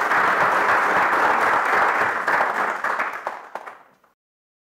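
Audience applauding, a dense patter of many hands clapping that fades out a little after three seconds in and ends in silence.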